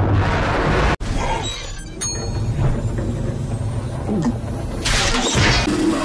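Cartoon soundtrack of music and sound effects, distorted by audio filters, with a sharp break about a second in where one filtered version gives way to another.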